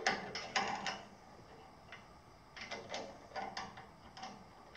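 Light clicks and knocks of an Incra miter gauge and its fittings being handled on a saw's metal sliding table: a quick cluster in the first second, a pause, then scattered clicks again over the last two seconds.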